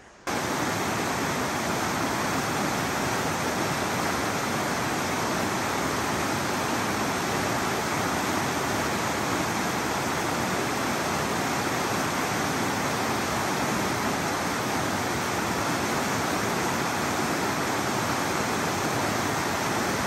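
A river rushing, a steady even wash of water noise that cuts in suddenly just after the start and holds unchanged.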